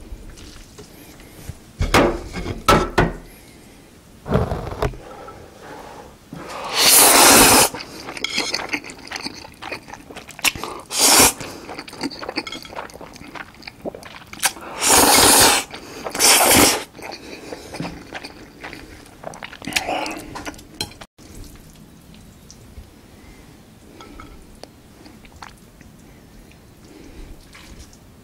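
Close-miked eating of thick, saucy Chapagetti black-bean instant noodles: several loud wet slurps, each about a second long, with smacking chewing between, and quieter chewing toward the end.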